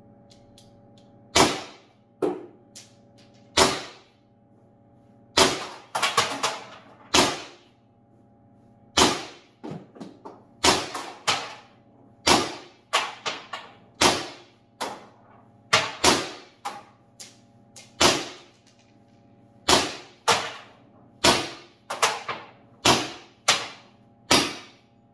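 A CO2-powered First Strike FSC .68-calibre pistol in a carbine conversion, fed by two 12-gram CO2 cartridges at its maximum velocity setting, fires a magazine of rounds in a string of sharp pops. The shots come at irregular gaps of about half a second to two seconds, each with a short ringing tail, and some are followed closely by a smaller crack.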